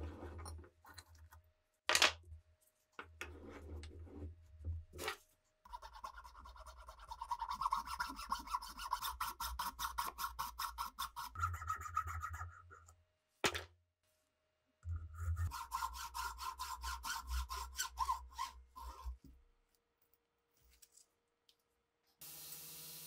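Rapid back-and-forth strokes of a small hand file rasping on a knife handle block clamped in a bench vise, in two runs of several seconds each. A few sharp clicks and short scrapes come before and between the runs.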